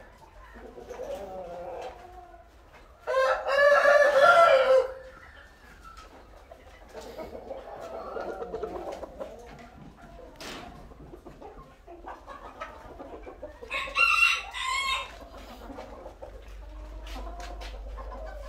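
Rooster crowing: one long crow about three seconds in, the loudest sound, and a shorter two-part call around fourteen seconds in. Between them, chickens cluck more quietly.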